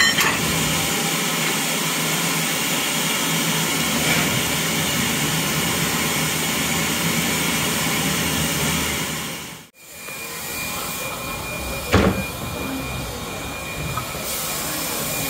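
Heritage train running, a steady even noise that cuts off abruptly about ten seconds in. A somewhat quieter running noise follows, with a faint steady high tone and a single sharp knock about two seconds later.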